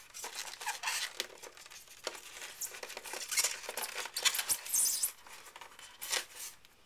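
A model locomotive being prised out of its moulded plastic packaging tray by hand: irregular scraping, rubbing and small clicks of plastic on plastic, with a louder scrape about five seconds in.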